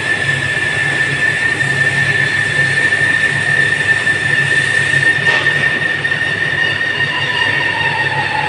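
Roof-bolt making machine running with a steady, high metallic squeal over a low throbbing hum; near the end a second, lower whine slides down in pitch.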